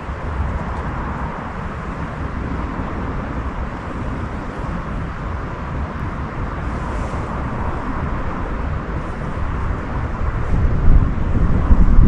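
Steady outdoor night ambience, mostly wind rumble on the microphone, turning gustier and louder about three-quarters of the way through.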